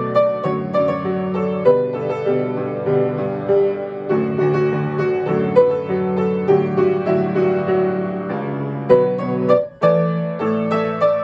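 Solo piano playing a pop-song arrangement: sustained bass chords under a moving melody. The music breaks off briefly about nine and a half seconds in, then resumes.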